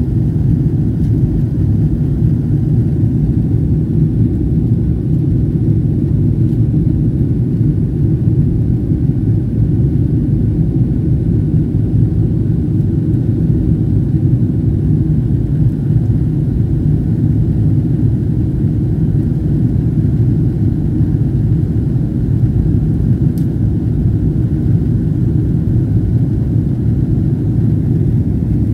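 Steady low rumble of a Boeing airliner's jet engines and rushing airflow, heard inside the passenger cabin during the climb after takeoff.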